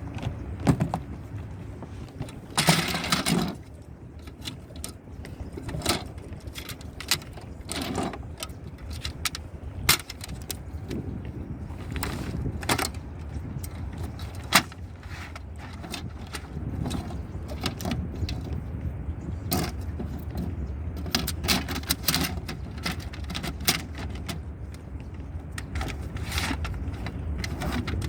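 Scattered clicks, knocks and scrapes of a folding plastic canoe's panels and fasteners being handled as it is taken apart, with a longer scraping rustle about three seconds in, over a steady low rumble.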